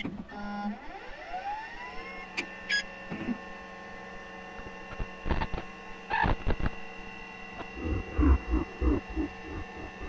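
Computer boot-up sound effects. A rising electronic whine in the first two seconds levels off into a steady electrical hum of several tones, with scattered clicks and short beeps and a quick run of pulsing blips near the end.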